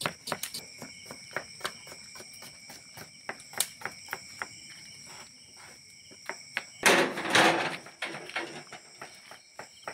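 Irregular knocks and clicks over a steady high-pitched insect-like drone, with one loud rushing noise lasting about a second around seven seconds in.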